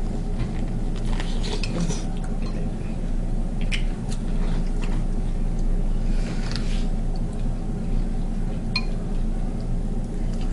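Eating a seafood boil: food and shells handled and bitten, with scattered light clicks and clinks, over a steady low hum.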